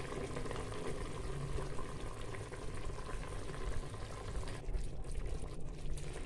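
Oxtail gravy simmering and bubbling in a pot as it thickens, with cooked broad beans tipped in from a bowl and splashing into it near the start.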